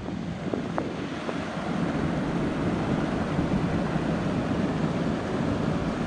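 Waterfall pouring down a rock face into a pool: a steady rush of falling water that gets a little louder about two seconds in.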